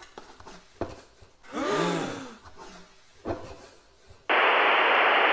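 Cardboard gift box being handled and opened, with a few light knocks and a rubbing sound. Near the end comes a loud burst of static hiss about a second long that starts and stops abruptly: a VHS-camcorder-style video transition effect.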